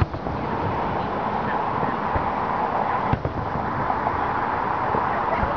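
Fireworks shells bursting: a few separate bangs, the loudest about three seconds in, over steady background noise.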